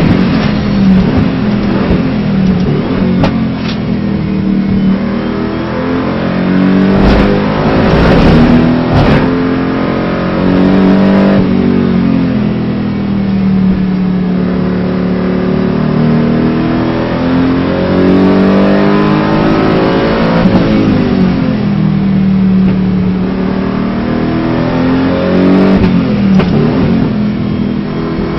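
Aston Martin GT4 race car engine heard from inside the cockpit at full racing pace, its pitch climbing under acceleration and dropping several times as the car brakes and shifts for corners. A few short knocks sound around a third of the way in.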